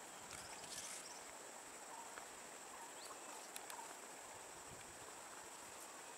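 Faint, steady high-pitched insect drone, with a few soft clicks in the first second and again about halfway through.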